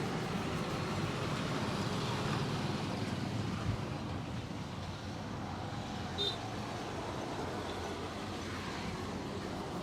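Steady roadside traffic noise, with a small knock a little under four seconds in and a short high-pitched blip about six seconds in.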